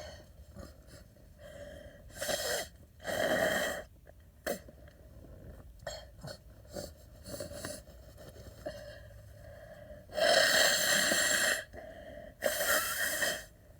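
A person with a head cold sneezing and breathing in sharply between sneezes: four loud, breathy bursts, the two longest near the end, with short sniffs between.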